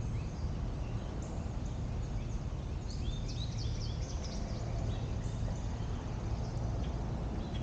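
Small birds chirping in short high calls, a busy flurry of them about three to four and a half seconds in, over a steady low outdoor rumble.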